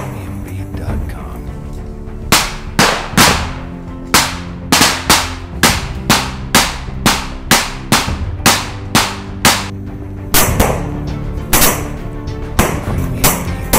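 Rifle shots fired as single rounds, each a sharp crack with a short echoing tail. From about four seconds in they come evenly at about three a second, then thin out near the end, over background music of held low notes.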